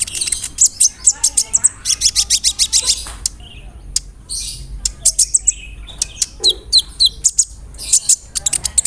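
Kolibri ninja (konin), a small sunbird, singing fast rolling runs of sharp, high chirps, broken by short pauses.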